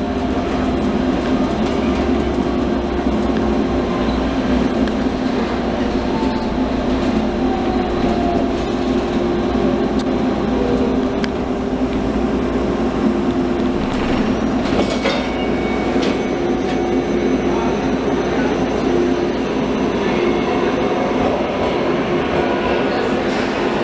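Interior of a UTDC H6 subway car running along the track: a steady hum from the running gear over the rumble of the wheels. There are a few sharp clicks about two-thirds of the way through.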